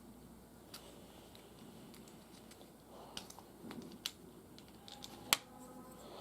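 Small plastic figure parts being handled and snapped together, giving a few scattered sharp clicks, the loudest about five seconds in.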